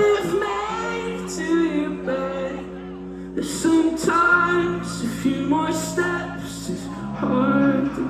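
Live indie rock band playing with a sung vocal line: electric guitar, bass and keyboard holding sustained chords under the singing.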